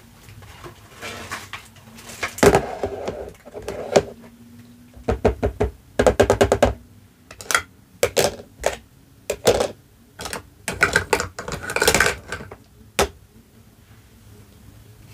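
Hard plastic toy dishes clattering and knocking as a tray, plates and a cup are set down and shuffled on a plastic toy sink. Uneven runs of sharp clacks, with a quick rattling run near the middle.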